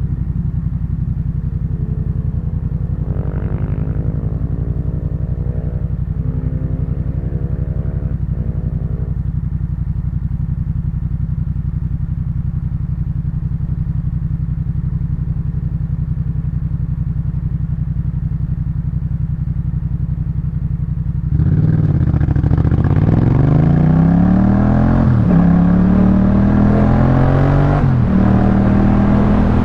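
Yamaha MT-07 parallel-twin engine through a Jeskap K4 full aftermarket exhaust, running steadily at low revs. About twenty seconds in, it opens up and pulls hard, the revs climbing and dropping back with upshifts every couple of seconds.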